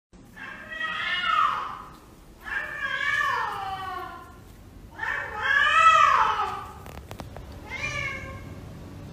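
A domestic cat meowing four times, each meow long and drawn out and rising then falling in pitch. The third meow is the loudest and the last is short and faint.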